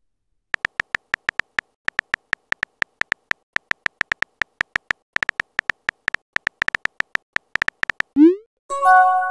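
Texting-app typing sound effect: rapid short electronic key clicks, all at the same pitch, several a second in uneven runs, as a message is typed out. Near the end comes a short rising pop and then a brief synth chord, the app's message sound.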